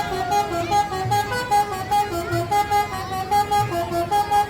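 Bus telolet horn, a set of musical air horns playing a fast, repeating tune of short stepping notes. A low pulse sounds underneath about once a second.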